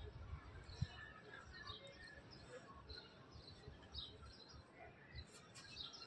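Faint outdoor ambience with scattered distant bird chirps, busier near the end, over a low rumble and one short thump about a second in.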